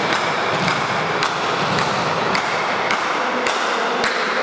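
Sharp knocks in a steady beat, about two a second, from spectators keeping a rhythm, over the hum of the crowd in a reverberant sports hall.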